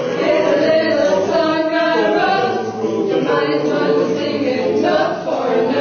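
A choir singing, holding long notes that move from pitch to pitch.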